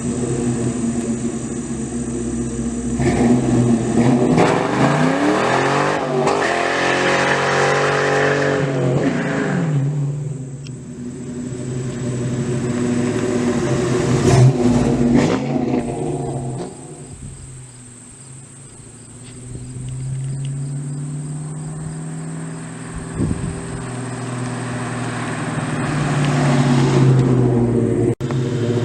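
2001 Ford Mustang Bullitt GT's 4.6-litre V8 through Jones Deflector Two chambered mufflers, accelerating and revving, its pitch rising and falling several times. It is quieter for a while in the middle and builds up again near the end.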